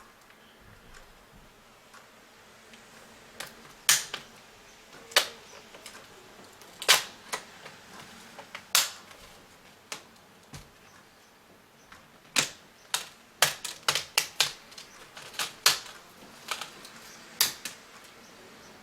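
Sharp, irregular clicks and snaps of a Lenovo Y470 laptop's plastic screen bezel being pried off, its clips popping loose from the back of the screen. They come a few seconds apart at first, then in quick clusters in the second half.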